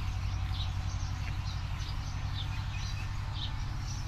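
Small birds chirping, many short high calls scattered throughout, over a steady low hum.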